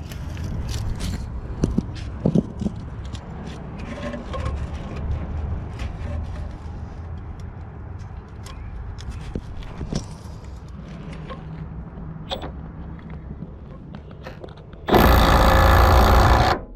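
Clicks and scraping of a tool and socket being positioned, then a Milwaukee M12 Fuel right angle impact wrench hammering loudly for almost two seconds near the end before stopping abruptly.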